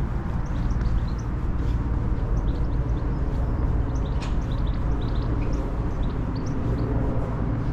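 Small birds chirping in short, scattered high calls over a steady low rumble of outdoor city ambience.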